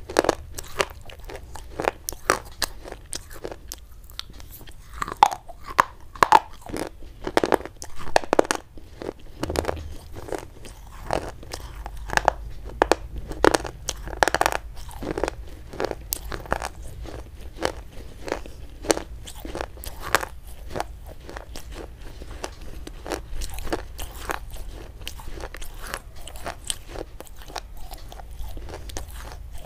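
Close-miked crunching and chewing of a brittle white chalk-like stick in the mouth: a dense, irregular run of sharp crackling crunches, several a second.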